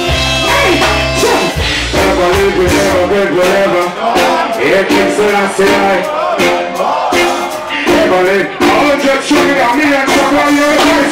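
Live reggae band music with a male vocalist singing through a stage microphone, backed by guitar and drum kit. A heavy bass note sounds in the first second or so.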